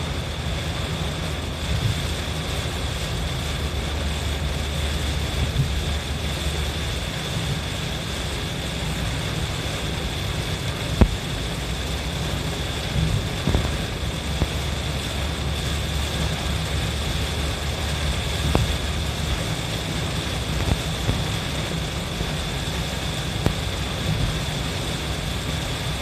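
Steady car-interior driving noise in heavy rain: a low engine and road rumble, with water on the windscreen as the wipers sweep. A few sharp clicks come through, the loudest about eleven seconds in.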